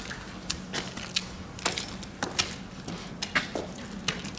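Footsteps climbing stone steps: hard shoe soles clicking and scuffing at an uneven walking pace, over a steady low hum.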